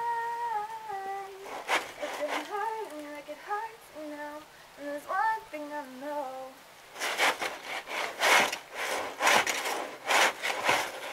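A woman's voice singing a melody unaccompanied for about the first six seconds, broken by a couple of scrapes. From about seven seconds, a snow shovel scrapes and pushes snow across wooden deck boards in a run of strokes, about one a second.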